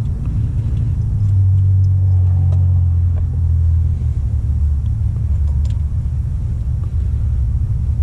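A steady low rumble, with a few faint clicks.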